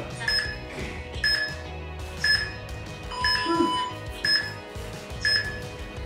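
Workout interval timer counting down with short high beeps once a second over background music; a longer, lower tone sounds about three seconds in.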